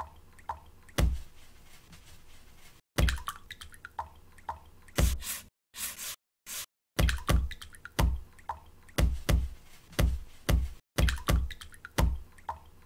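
Soundtrack assembled from recorded watercolour painting sounds: water drips, plops and brush or jar taps laid out in a loose beat. Sharp taps with short dripping blips, broken by sudden gaps of dead silence, and coming faster, about two or three a second, in the second half.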